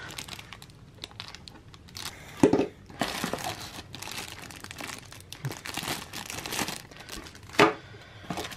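Plastic zip bags holding action-camera mounts crinkling and rustling as they are handled and lifted out of a cardboard box. Two sharper, louder sounds come about two and a half seconds in and near the end.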